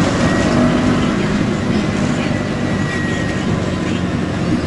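A mototaxi's small motorcycle engine running steadily under way, mixed with wind and road noise.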